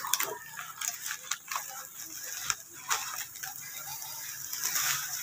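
Plastic bubble wrap crackling and crinkling in irregular snaps as it is sliced open with a small knife and handled.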